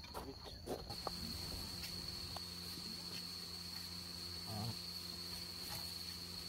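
Crickets trilling steadily and faintly as one high, unbroken tone. A low hum runs underneath, with a few soft clicks in the first second.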